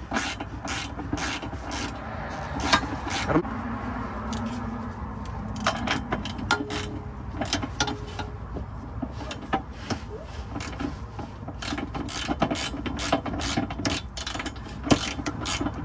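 Hand socket ratchet clicking in short, irregular runs as a bolt is threaded in by hand on a car's transmission crossmember. The bolt is going in right, with a little thread friction.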